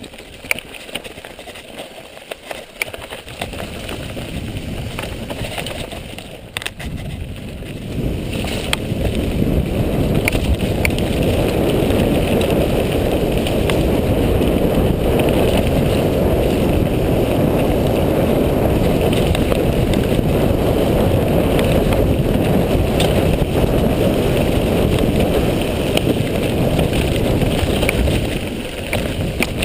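Mountain bike riding fast down a dirt forest trail: wind rushing over the microphone and tyres rumbling on the dirt, with knocks and rattles as the bike goes over bumps. The rush gets louder about eight seconds in and eases a little near the end.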